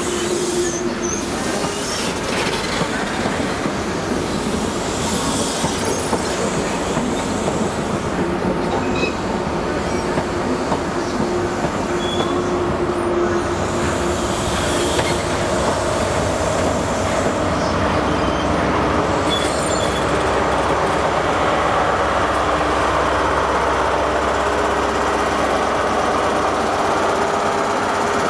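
Diesel passenger trains running through a station, a steady engine drone over wheel-on-rail noise. A deeper engine hum grows stronger over the last several seconds.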